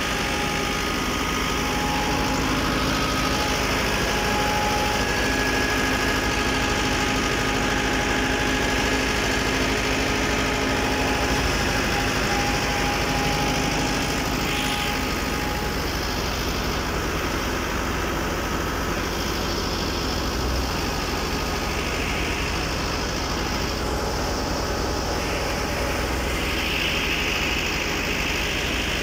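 Massey Ferguson 385 tractor's four-cylinder diesel running at a steady speed, driving a belt-driven thresher, with the thresher's drum and belts adding a steady whine over the engine.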